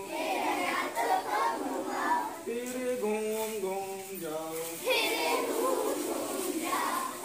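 A group of children singing a clapping action rhyme in unison, with a man's voice singing along and a few hand claps in between.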